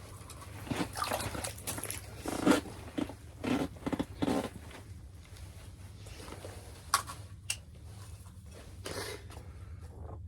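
Irregular splashing, scuffing and crunching at an ice-fishing hole as a crappie is brought up and handled, then two sharp clicks about seven seconds in.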